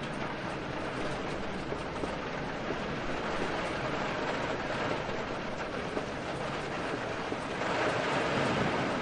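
Steady heavy rain with wind, a dense even hiss with a low rumble under it; about seven and a half seconds in it swells louder as a roll of thunder builds.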